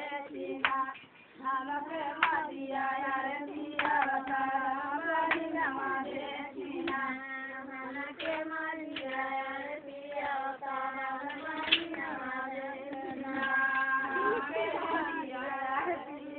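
Women singing a folk song, with sharp hand claps keeping time about every second and a half.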